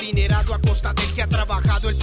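Background hip hop music with rapped vocals over deep kick drums that drop in pitch, about three a second.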